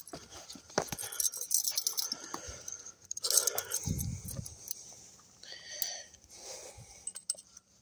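Small metal fishing tools, pliers and a fish lip-grip, clinking and jangling as they are handled, with scattered clicks and a dull thump about three and a half seconds in.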